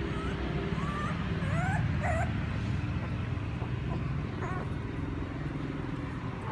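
Puppies whimpering and crying: several short, high-pitched rising-and-falling squeals in quick succession about a second in, and another a few seconds later, over a steady low rumble.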